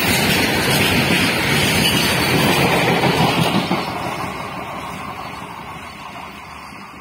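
Empty BOXN open steel freight wagons rattling and rumbling past at high speed, their wheels running hard on the rails. The tail of the train passes about three and a half seconds in, and the noise then fades steadily as the train draws away.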